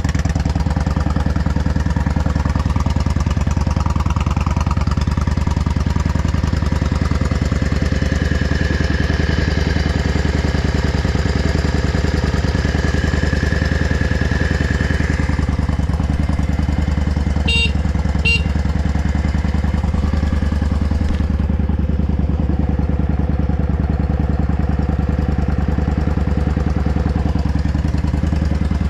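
Yamaha Drag Star 400's V-twin idling steadily through an aftermarket Kentec big-slash muffler, with two short clicks a little over halfway through. The seller judges it to run well, with no abnormal noise.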